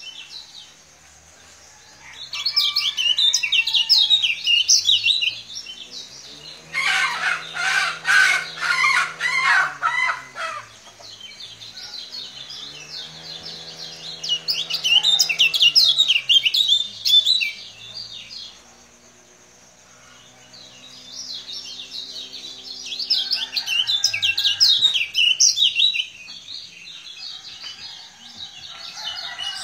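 Kecial kuning, a caged white-eye, singing in repeated bursts of rapid, high, chattering twitters with short pauses between them; the burst a third of the way in is the loudest. A lower drawn-out tone that rises and falls in pitch sounds behind some of the bursts.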